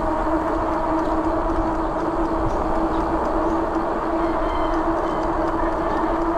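Fat bike rolling steadily on a paved road: the wide knobby tyres give a continuous, even-pitched hum over rushing wind noise.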